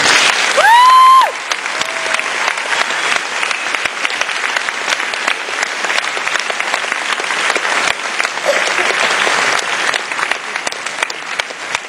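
Audience clapping steadily, with a loud, high-pitched whoop from someone in the crowd about half a second in.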